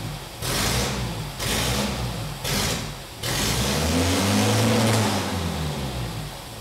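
Ford Sierra engine with Bosch K-Jetronic injection and a homemade guillotine throttle body, running for the first time. It is revved in three short blips about a second apart, then in one longer rev that rises and falls, and it winds down near the end.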